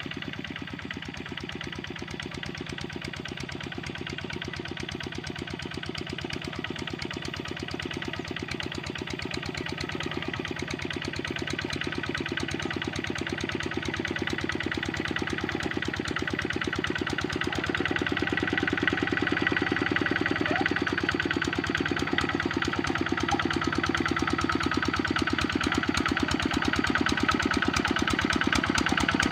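Kubota RD65 single-cylinder diesel on a hand tractor running steadily, a rapid even firing beat that grows gradually louder.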